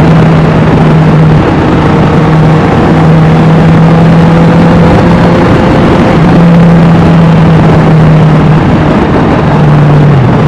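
Honda CBR650R inline-four engine running loud through an Austin Racing aftermarket exhaust while riding, held at a steady engine speed. Its pitch dips briefly near the end, then comes back.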